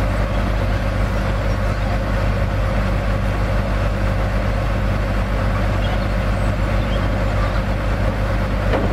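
Recovery truck's diesel engine running steadily, a low even hum with no changes in speed.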